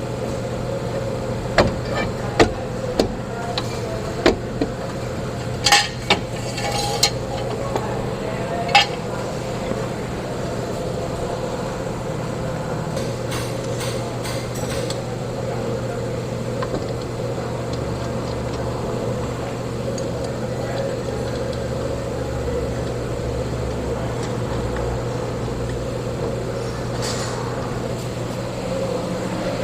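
Sharp metallic clinks and knocks of tools against metal car parts, a cluster in the first nine seconds and a few later, over a steady background hum.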